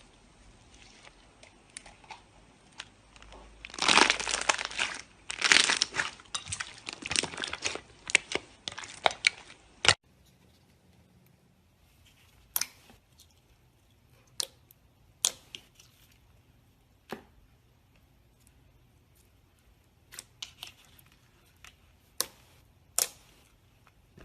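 Slime being squeezed and pressed by hand: dense crackling and crinkling that grows loud about four seconds in and stops abruptly near the middle, followed by scattered single pops and clicks.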